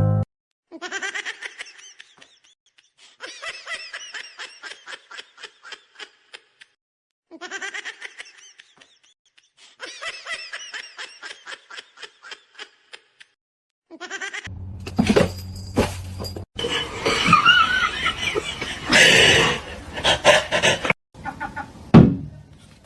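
Laughter: high, rapid pulses of laughing, the same run heard twice in a row, followed by a louder, fuller stretch of mixed sound in the second half.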